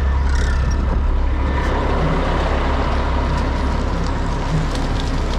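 Concrete mixer truck's diesel engine running steadily, a constant low rumble under an even mechanical noise.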